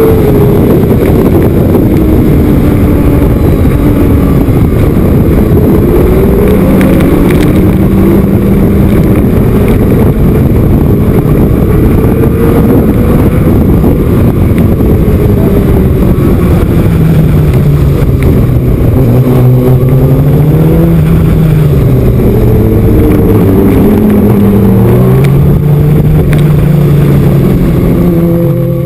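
Racing sport bike engine recorded from a camera mounted on the bike at speed, its note climbing and dropping over and over through gear changes and corners, under a heavy, loud rush of wind noise.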